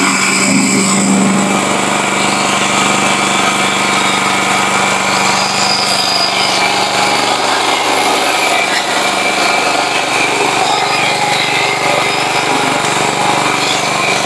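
Small Chinese-made petrol engine of a remote-controlled flail mower running steadily.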